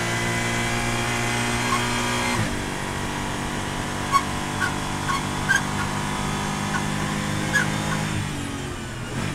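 Porsche GT4 race car's flat-six engine pulling hard at full throttle, heard from inside the cabin; the pitch drops sharply about two seconds in on an upshift from third to fourth gear, then climbs again as the car accelerates. Several short sharp clicks sound in the middle, and near the end the engine note falls away as the driver comes off the throttle.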